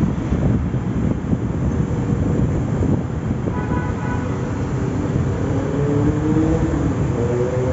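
Street traffic: a steady rumble of engines and road noise. About halfway through there is a brief high tone, and near the end an engine revs up, rising in pitch.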